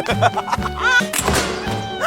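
Background music with a steady bass beat. A brief warbling sound comes a little under a second in.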